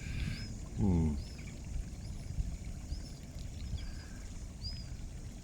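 Small birds chirping, short high notes repeated about once a second, over a steady low rumble of wind on the microphone; a brief falling hum from a man's voice about a second in.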